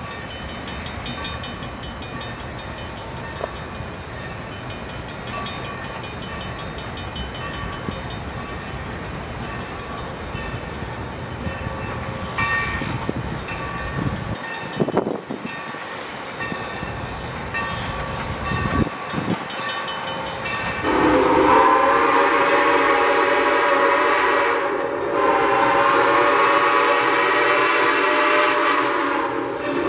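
Steam locomotive whistle blowing two long blasts, each a chord of several tones, starting about two-thirds of the way in, with a third blast starting at the very end. Before the whistle, the approaching locomotive is heard only faintly under steady background noise.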